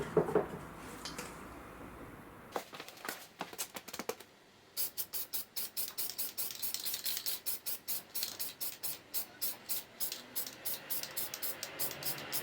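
Aerosol spray paint can being shaken, its mixing ball rattling in a steady rhythm of about four to five strokes a second, after a few scattered clicks.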